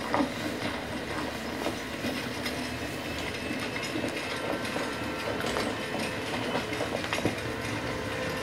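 Film soundtrack played back from a laptop: steady background noise with scattered faint clicks and knocks, no speech.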